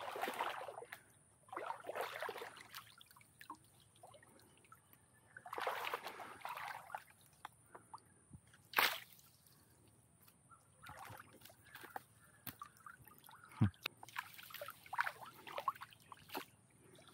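Shallow canal water sloshing and splashing in irregular bursts as someone works by hand in the stirred-up water. A single sharp click or knock comes a little before the middle.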